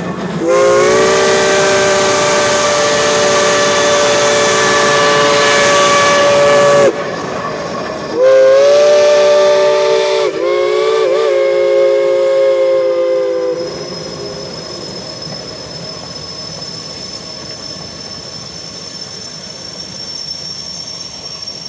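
Climax geared steam locomotive's chime whistle sounding several tones at once: one long blast of about six seconds, a pause of about a second, then two more blasts run almost together, the last one wavering and sagging in pitch before it dies out. After that comes the quieter steady hiss and running of the passing train, with a faint high squeal near the end.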